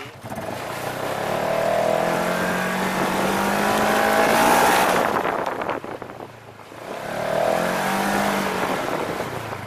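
Side-by-side UTV engine pulling under throttle: it rises in pitch over the first few seconds, eases off about six seconds in, then builds again, over a steady rushing noise.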